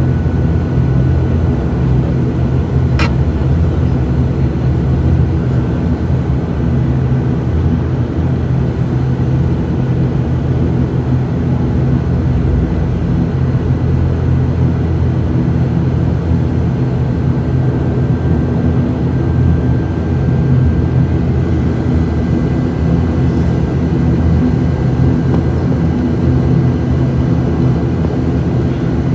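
ATR 72-600's twin Pratt & Whitney PW127M turboprop engines and propellers droning steadily, heard from inside the passenger cabin. There is one faint click about three seconds in.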